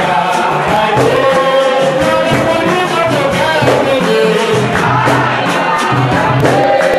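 A group of voices singing together over rhythmic hand percussion, in what sounds like a capoeira song.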